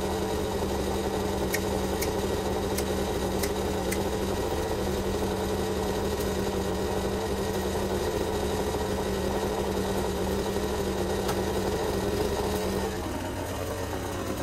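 Small two-stroke engine of a Husqvarna petrol garden power tool idling steadily. Near the end its note drops away and it gets slightly quieter.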